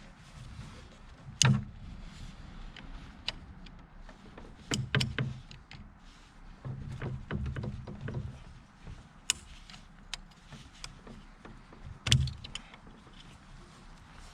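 Hand tools and metal parts being handled on a motorcycle's steering head: scattered sharp clinks and knocks, the loudest about a second and a half in and again near the end, with duller thuds and shuffling in between.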